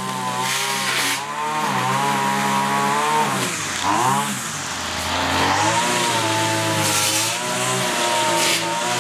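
Small petrol engine running, its speed wavering up and down and dipping sharply about four seconds in before picking up again.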